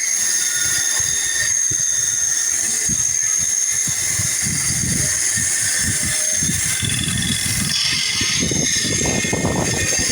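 Sandpaper rubbing back and forth on a red oak knife handle by hand: a continuous hiss with uneven strokes that come faster in the second half.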